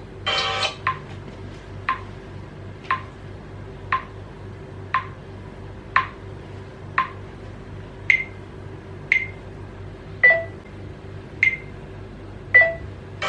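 Short electronic tick-beeps about once a second over a steady low hum, after a brief noisy burst at the start. The first seven beeps are lower and the last five higher.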